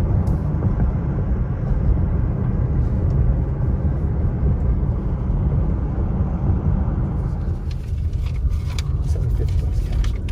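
Steady low rumble of a car driving along a road, tyre and engine noise heard from inside the cabin. Near the end come a few light clicks.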